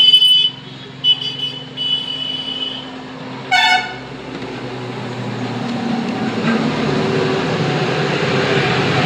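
Vehicle horns honking from street traffic: held horn tones at the start, a short toot about three and a half seconds in, then the noise of passing traffic growing louder.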